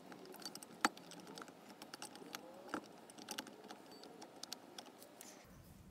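Faint, irregular light metallic clicks and ticks of a 42RE transmission's clutch packs being turned and wiggled by hand to line up the clutch disc splines so the assembly will seat, with a sharper click about a second in and another near three seconds.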